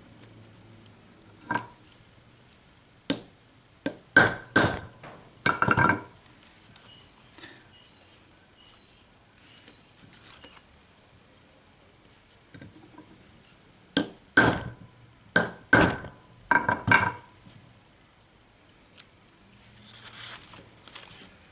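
Hammer tapping a concave nail punch to peen a cut pin into a rivet head on a pocketknife, the work resting on a piece of railway track as an anvil. Sharp ringing metal taps come in two short runs with a long pause between.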